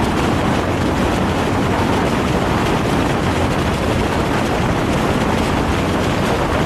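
Motorcycle riding at speed: a steady rush of wind over the camera microphone with the engine's low rumble underneath.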